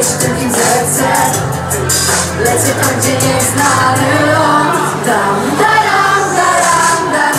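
Female pop vocal sung live into a hand microphone over a backing track with a steady beat and bass.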